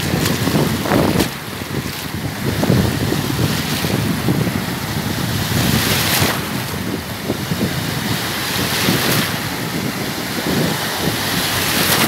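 Small sea waves breaking and washing over the sand in the shallows, the surf swelling and easing every few seconds, with wind buffeting the microphone.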